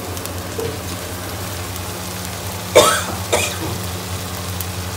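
Masala and stuffed tinda simmering in a pan, a low steady sizzle under a steady hum. About three seconds in, a person coughs twice, half a second apart, the first louder.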